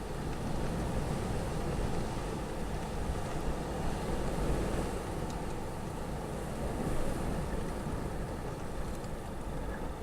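Storm wind blowing in gusts: a steady rushing that swells and eases, strongest about halfway through and again a little later.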